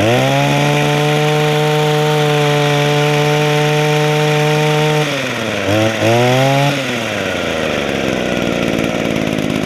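Echo hedge trimmer's small two-stroke engine, running on a freshly rebuilt Walbro carburetor. It is held at high revs for about five seconds, drops off, revs up once more briefly, then falls back to a steady idle. It runs okay, but the owner thinks it is a little worn out.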